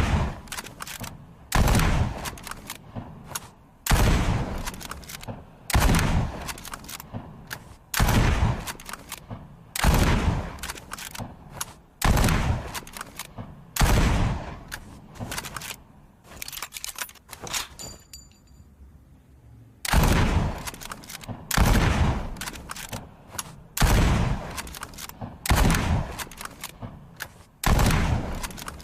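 Mosin-Nagant M38 bolt-action carbine in 7.62×54mmR firing about a dozen single shots, roughly one every two seconds, with a pause of about six seconds in the middle. Each shot has a ringing tail, and fainter clicks fall between shots.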